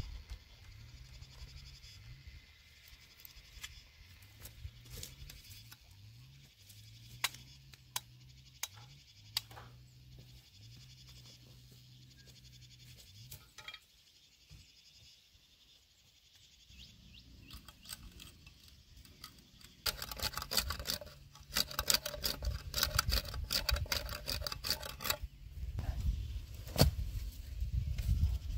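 Dry vines, leaves and twigs rustling, crackling and snapping as they are handled and pulled by hand along a bamboo-stake and wire-mesh fence. There are scattered snaps at first and a dense run of crackling about two-thirds of the way through. A faint low hum runs under the first half.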